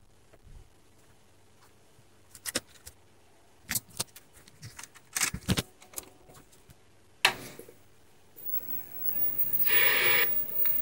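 Small clicks and rattles as the CRT socket board and its wires are handled and pushed onto the picture tube neck. About seven seconds in, a sharp click as the JVC CRT television is switched on, then a faint, thin, very high whine with a hiss as the set powers up, and a short rushing noise near the end.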